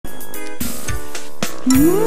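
Short opening title music: held chords punctuated by several sharp drum hits, with a tone sliding upward near the end.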